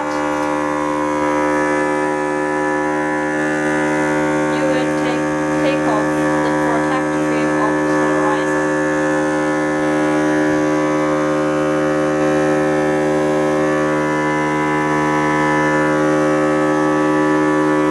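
Vacuum pump of a phone-screen OCA/polarizer laminating machine running with a steady hum made of several constant tones, holding the polarizer film down on the LCD.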